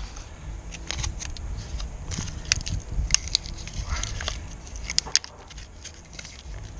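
Foil sachet of Sugru mouldable glue being handled and torn open: intermittent crinkling and sharp crackles of the foil wrapper, over a low rumble.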